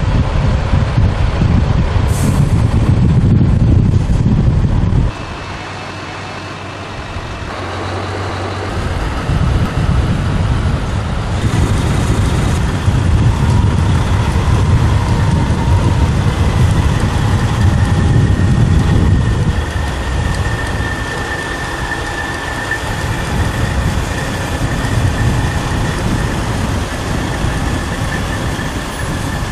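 Big American semi-trucks driving past, their diesel engines and tyres making a steady low rumble, with wind on the microphone. The sound drops off suddenly about five seconds in, then builds back up as more trucks come past.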